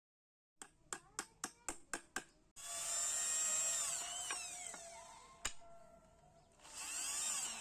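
Power drill run in a series of short trigger bursts, about four a second, then held on for a longer run whose pitch sags and later climbs again, with one sharp knock in the middle; typical of driving screws into wood.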